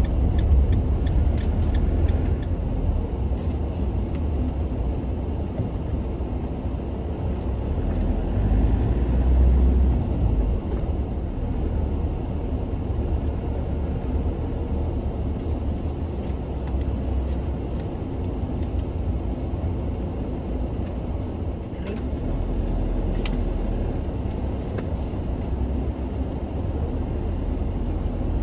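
Steady low rumble of a camper van's engine and tyres on the road, heard from inside the cab while driving.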